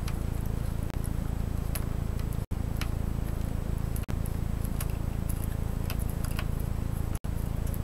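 Faint small clicks of a hand screwdriver turning screws into a laptop's underside, over a steady low hum. The sound cuts out completely for an instant twice.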